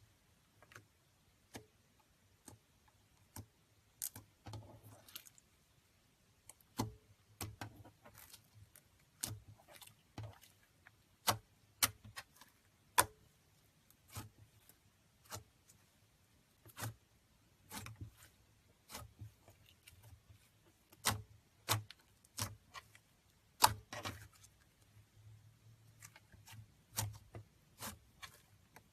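Irregular sharp clicks and taps, roughly one or two a second and uneven in strength, from slime being made by hand.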